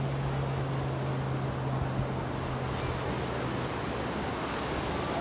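Surf breaking and washing up the beach as a steady rush of noise, with a low steady hum underneath that fades out about four seconds in.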